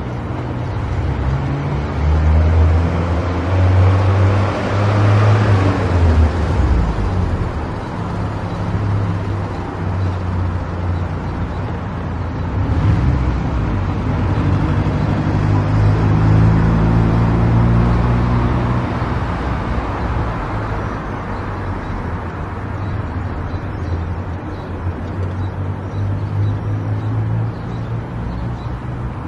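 Car driving on an expressway: steady road and tyre noise with a low engine drone that shifts in pitch a few times.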